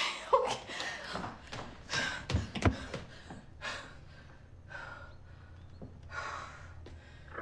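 A woman gasping and breathing hard in fright, in short sharp breaths spread over several seconds, with two light knocks about two and a half seconds in.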